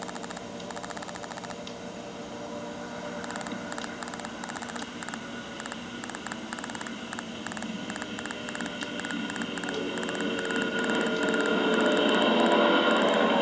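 Small engine of a Ragwing Special mini Pitts ultralight biplane running through its landing and taxi, a steady buzz that grows steadily louder as the plane comes close.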